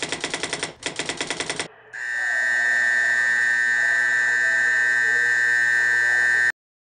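Fire alarm sounding: two short bursts of rapid, evenly pulsing ringing, then a steady high-pitched alarm tone held for about four seconds before it cuts off suddenly.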